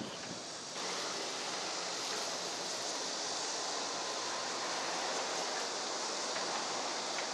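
Steady rushing outdoor background noise, a hiss that gets louder about a second in.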